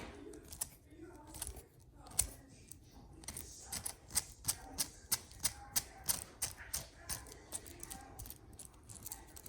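Small hard clicks from the rebuilt Axial SCX10 II portal axle quarter being worked by hand, scattered at first and then coming regularly about two to three a second; one of its parts feels too tight.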